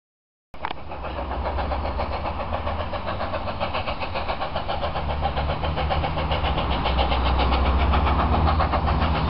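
BR Standard Class 4MT 2-6-4T tank steam locomotive approaching under power, its exhaust beating in a fast, even rhythm over a low rumble. It starts abruptly and grows gradually louder as the engine draws nearer.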